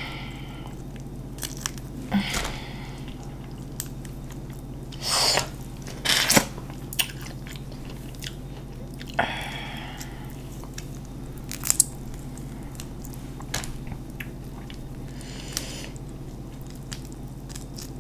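Close-miked eating sounds: chewing, with sharp clicks and a few brief louder crackles as the shell of a boiled shrimp or crawfish is peeled by hand.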